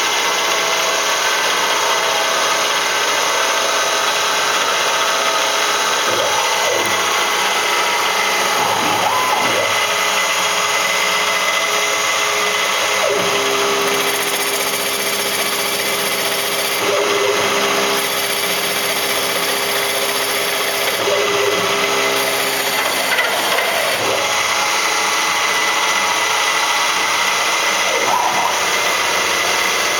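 Rong Fu RF-45 milling machine converted to CNC, running a program: the spindle runs steadily while the stepper motors that drive the axes whine, their pitch gliding up or down as moves start and stop, with a steadier whine for a stretch in the middle. The end mill is pocketing holes in aluminium castings.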